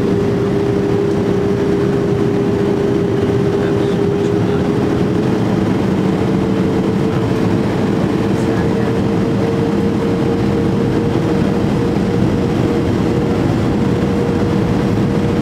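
Cabin noise of a Boeing 737-300 in flight on approach: a steady rush of air and jet-engine drone. A humming engine tone runs through it and creeps up a little in pitch about five seconds in.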